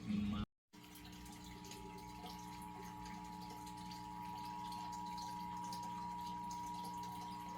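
Emergency Alert System attention signal: a steady two-tone alarm held without a break, which announces an EAS alert, here a Required Monthly Test. It starts after a brief cut in the audio about half a second in.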